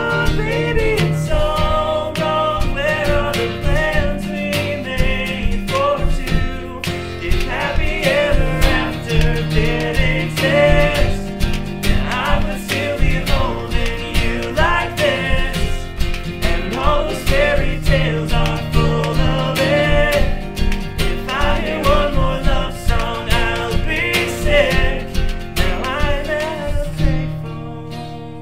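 Pop song sung with layered vocal harmonies over acoustic guitar and a steady beat tapped and scraped on household objects such as Tupperware, paper and sandpaper. Near the end the beat drops out and the music fades.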